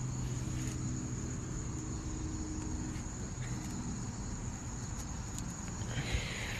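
Steady outdoor background of a continuous high insect trill, with a low steady hum underneath.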